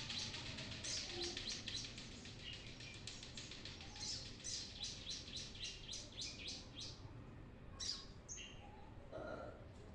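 Brown-throated sunbird (kolibri kelapa) singing vigorously: long runs of quick, sharp, high chirps, several a second, thinning to a few scattered notes near the end.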